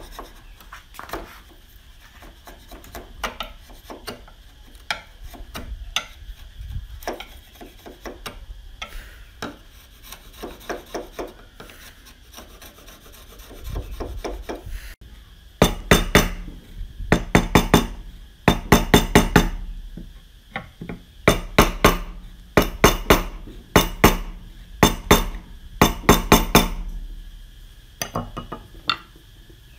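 Steel chisel paring and scraping end grain in a V-shaped notch in a wooden beam, short scraping strokes one after another. About halfway through, louder runs of quick sharp knocks of steel on wood come in clusters.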